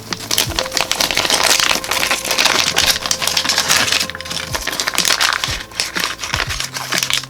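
Packaging being unwrapped by hand: a long run of irregular crinkling and crackling.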